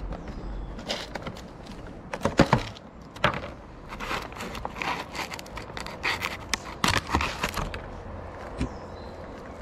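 Clear plastic food containers clicking, crackling and scraping on a tiled floor as they are set down and moved by hand, in irregular bursts of sharp clicks, the loudest about two and a half seconds in.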